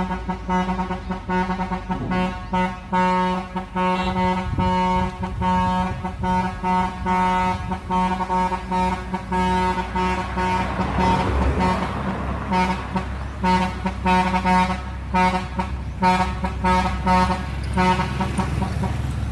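Truck air horn sounding in a quick rhythmic series of short blasts, over the low rumble of the truck's engine.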